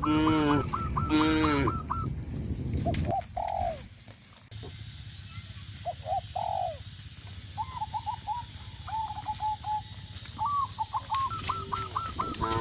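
Farmyard birds calling: a quick run of repeated high calls, two loud honk-like calls in the first two seconds, then scattered short calls and chirps.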